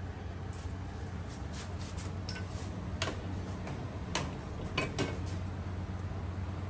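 Short metallic clicks and knocks from cast-iron taiyaki molds being handled and turned. There are a handful of them, the sharpest about three, four and five seconds in, over a steady low hum.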